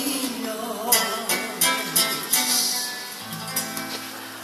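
Acoustic guitar playing chords in an instrumental fill of a live Greek song, growing quieter near the end.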